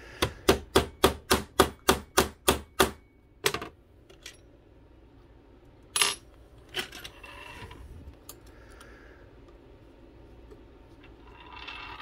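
Rubber mallet tapping a bent aluminium boat rudder against a plastic cutting-board block: a quick, even run of about a dozen sharp knocks, roughly four a second, working the bent leading edge back into shape. A few more single knocks follow further in.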